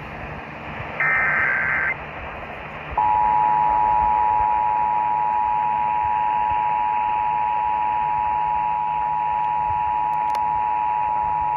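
Emergency Alert System test broadcast over the radio: about a second in, a one-second burst of SAME header data tones warbling near 2 kHz, then from about three seconds the EAS two-tone attention signal (two steady tones sounding together, near 853 and 960 Hz), all over radio hiss.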